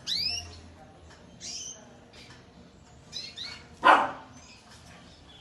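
Caged canaries giving short, sweeping chirps, a few seconds apart. About four seconds in there is a single short, loud bark.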